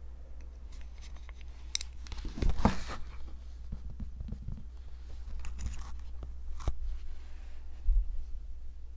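Close-miked ASMR handling sounds of fingers and long nails on mochi ice cream: scattered light clicks and taps, with a brief tearing, crinkling rasp about two and a half seconds in and a soft thump near the end, over a low steady hum.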